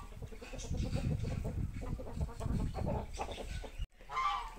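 Chickens clucking in a low, busy run of pulses. About four seconds in, the sound cuts out briefly, then a higher, drawn-out bird call begins.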